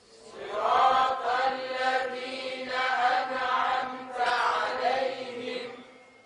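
Religious chanting: a voice sings three long, melodic phrases over a steady held note.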